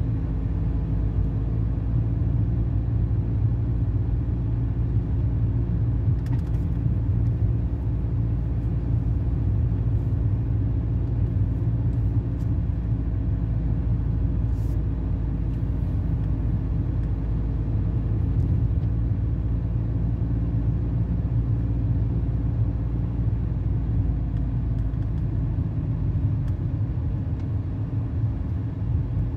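Car driving, heard from inside the cabin: a steady low road rumble with a faint steady hum.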